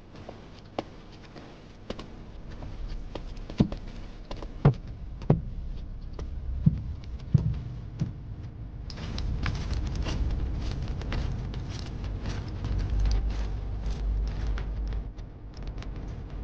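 Footsteps and scattered knocks and thuds of bearers carrying a sedan chair. About nine seconds in it grows busier, many small taps over a low rumble.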